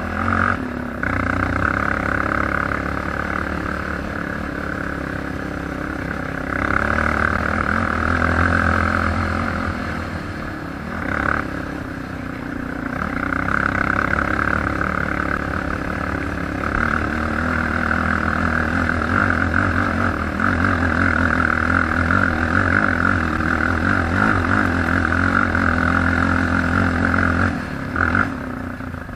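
ATV engine running under way, its drone swelling and easing as the throttle changes, with a brief dip about eleven seconds in.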